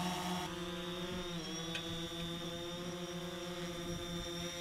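DJI Phantom 4 quadcopter hovering close by, its four propellers giving a steady buzzing hum, with a short dip and recovery in pitch about a second and a half in as the motors adjust.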